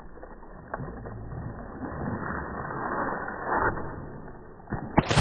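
A dog leaping off the pool edge and hitting the water, with a loud splash right at the end. Before it, a muffled, uneven noise runs as the dog crouches and springs from the deck.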